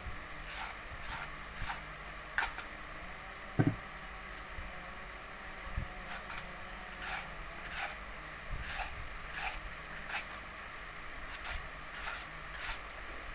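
Green papaya being shredded with a hand-held papaya shredder: short scraping strokes, about two a second, in runs with pauses between. A single low thump about three and a half seconds in.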